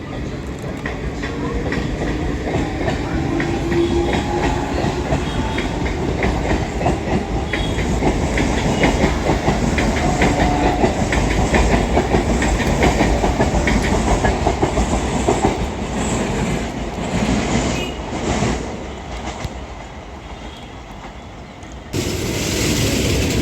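Electric local train running on the track, its wheels clattering over the rail joints in a steady rumble with many short clicks. The sound fades for a couple of seconds near the end, then comes back suddenly at full level.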